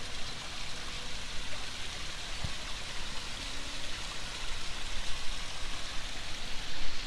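Steady rushing noise, strongest in the high hiss range, with no pitch or rhythm.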